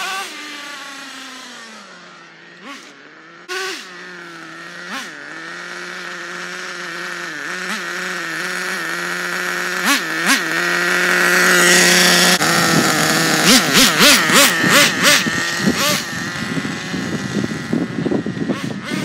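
Nitro RC buggy's small two-stroke glow engine running, its whine fading as the car drives off and then growing louder and higher as it comes back. In the last few seconds the engine revs up and down in quick repeated bursts.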